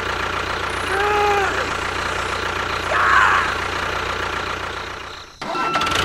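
Steady engine-like running noise of a mini tractor, with two short rising-and-falling pitched sounds over it about one and three seconds in. It fades and breaks off abruptly shortly before the end.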